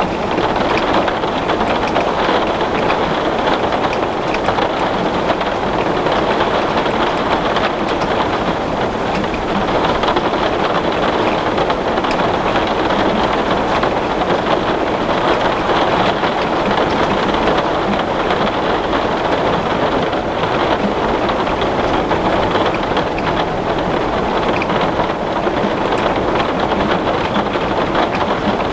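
Heavy rain falling on glass, a steady dense hiss of drops.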